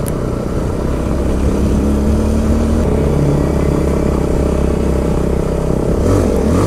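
Motorcycle engine running steadily while being ridden, with small shifts in pitch as the throttle changes.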